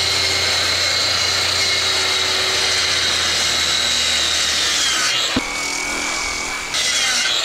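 DeWalt circular saw running through a wooden plank, with a steady high whine; about five seconds in the whine drops away as the saw winds down, followed by a knock. A quieter power tool keeps running after that and grows louder near the end.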